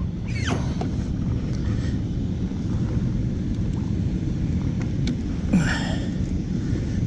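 Steady wind rumble buffeting an outdoor camera microphone, with a brief scuffing noise about five and a half seconds in.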